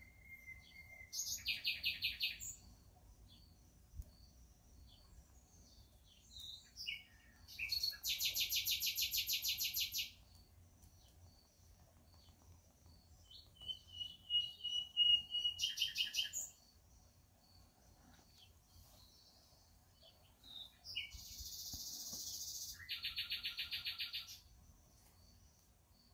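Birds singing: about four fast trilled songs, each one to three seconds long, with a few short whistled notes between them.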